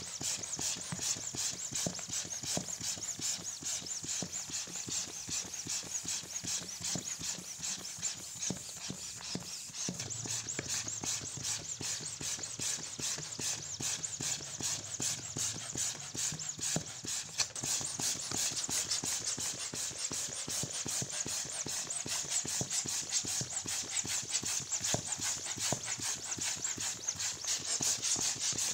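Electric balloon pump blowing air into a balloon: a continuous hissing rush of air with a fast, even pulsing.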